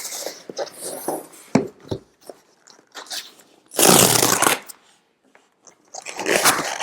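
Cardboard and paper packaging being handled and torn open: crinkling and scraping, with one loud tearing rip about four seconds in.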